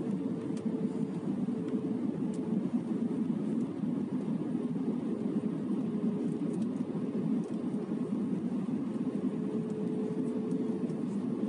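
Steady cabin roar inside an Airbus A320 airliner on its landing approach, heard from a window seat. A faint steady hum runs under the roar, dropping out in the middle and coming back near the end.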